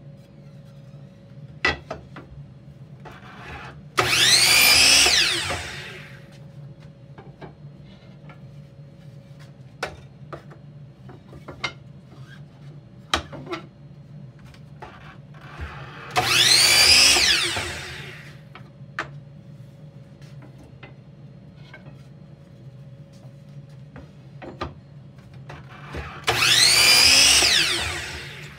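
Miter saw making three crosscuts through chestnut table-leg blanks, each cut about two seconds of motor whine rising and then falling as the blade spins up, cuts and winds down. Wood knocks and clatter from handling the blanks come between the cuts.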